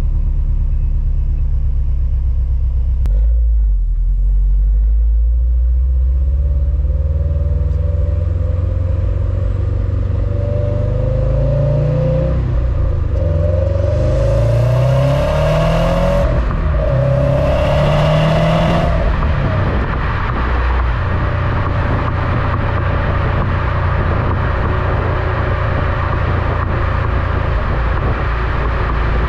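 Stock exhaust of a 2021 Subaru WRX STI, its turbocharged 2.5-litre flat-four boxer engine rumbling as the car pulls away. About halfway through the pitch rises several times with short breaks between, as it accelerates up through the gears, then settles into a steady cruise with road and wind noise.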